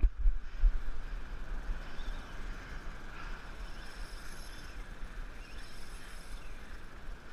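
Surf washing and breaking against the rocks, with wind buffeting the microphone and a few low knocks in the first second.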